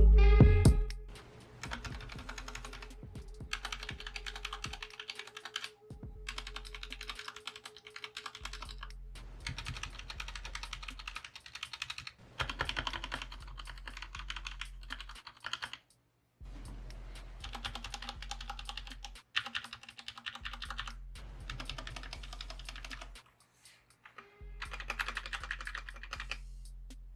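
Keys of compact 60% mechanical keyboards (Royal Kludge RK61 and Redragon K530) clacking in rapid repeated presses, heard in several short takes with brief cut-off gaps between them. This is a stabilizer sound test of the long stabilized keys. Background music cuts off about a second in.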